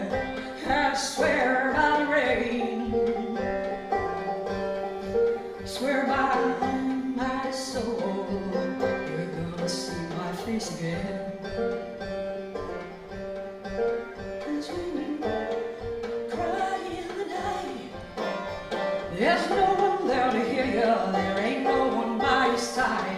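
Banjo picked steadily under a woman's singing voice, which comes and goes between short instrumental stretches.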